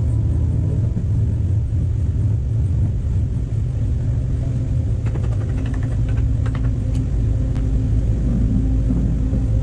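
A machine running steadily with a low rumble, with some light rattling clicks about halfway through.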